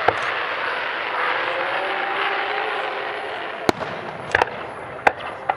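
Fireworks going off: sharp bangs of bursting shells, one right at the start and several more in quick succession over the last two seconds, over a steady rushing noise in the first half.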